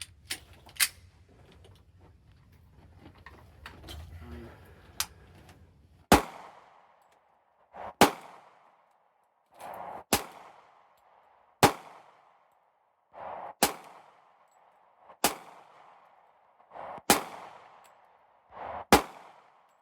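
Semi-automatic pistol fired eight times at a slow, steady pace, about one shot every two seconds, each shot ringing out briefly. A few sharp clicks come in the first seconds before the shooting starts.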